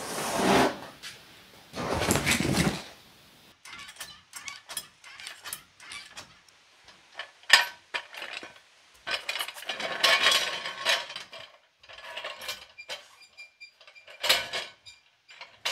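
A stiff molded truck carpet rustling and flopping as it is handled. After that come scattered metallic clicks and short clanking bursts as a floor jack is worked under the truck.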